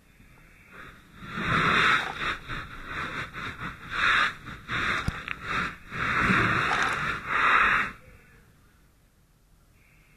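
Fire hose stream spraying in repeated bursts, a loud hissing rush that starts about a second in, cuts in and out several times, and stops near the end.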